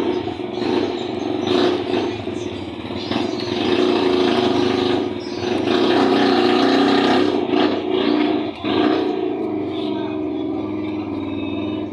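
A motor vehicle engine running, loud and steady, cutting off suddenly near the end.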